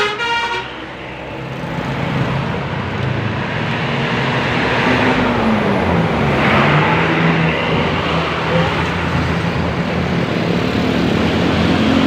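The last notes of a bus's musical telolet horn cut off right at the start. Then a heavy vehicle's engine runs under steady road traffic noise, its engine note dropping about halfway through.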